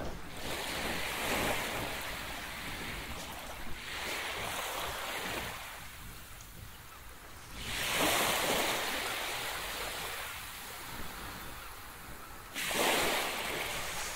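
Small waves breaking and washing up on a beach, the hiss of surf swelling and fading about every four seconds, the strongest surges about halfway through and near the end.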